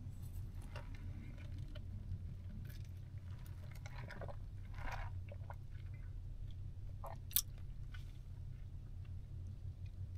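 Quiet sipping, swallowing and lip-smacking as an iced oat milk drink is tasted, with small wet mouth clicks and one sharper click about seven seconds in, over a low steady hum.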